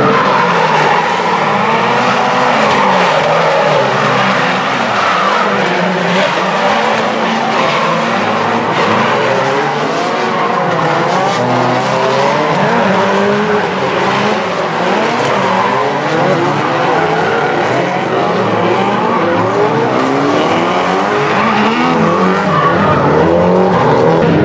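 Several drift cars sliding through the corners together, their engines revving up and down over one another with tyres skidding and squealing throughout.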